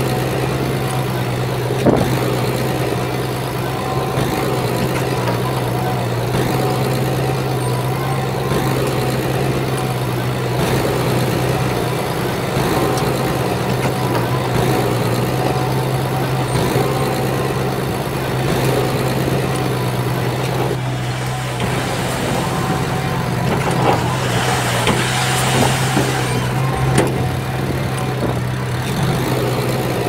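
Komatsu crawler bulldozer's diesel engine running steadily under work, with a few metallic clanks and, in the second half, a few seconds of rushing hiss.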